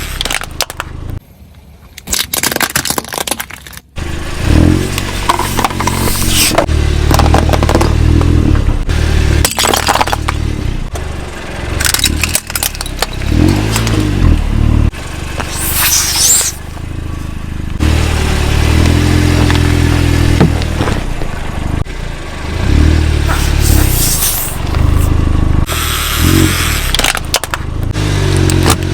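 Car engine revving up and down as the car rolls over objects, with crunching, cracking and bursting as the objects are crushed under the tyres, several times over.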